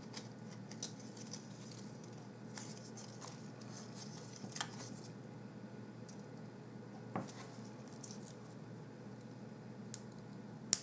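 Faint handling of paper and a glue-dot roll: the roll's paper backing strip rustles and crinkles as a glue dot is peeled off and pressed onto a small paper bow, with a few light ticks scattered through.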